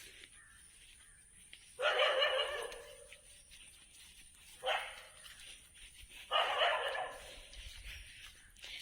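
A Doberman dog barking in three bouts: a longer one about two seconds in, a short one near the middle, and another a little later.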